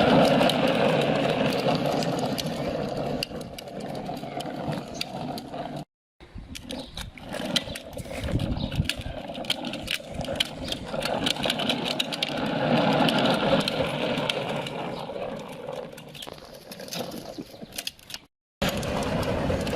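A small motor running with a fluctuating whir and fine rattling clicks. It cuts off abruptly twice, about six seconds in and near the end.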